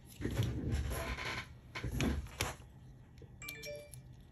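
Handling noise as a spot welder's pen probe and its cable are moved about, rustling with a couple of sharp clicks. Near the end comes a brief run of electronic beep tones.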